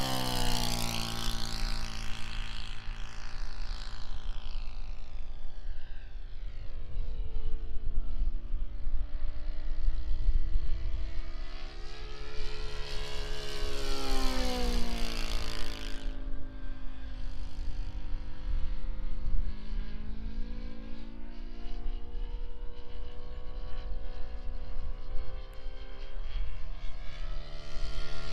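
Giant-scale Top Flite P-51 Mustang RC model, powered by a GAUI F50 turning a Mejzlik 21x10 propeller, flying past. Its propeller drone drops in pitch as it sweeps past at the start and again about halfway through, then grows louder again near the end as it comes back around.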